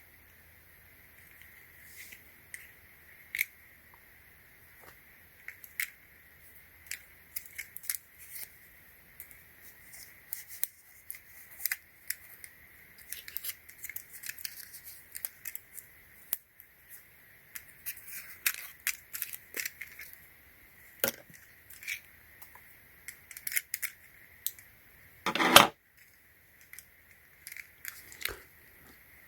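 Scissors snipping and toy packaging being handled: scattered sharp snips and clicks, with one louder noise lasting about a third of a second near the end.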